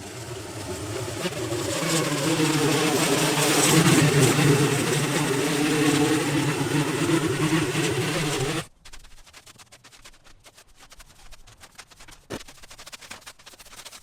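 An engine running steadily with a strong hiss, building up over the first few seconds and cutting off abruptly about nine seconds in. Faint scattered clicks and scraping follow.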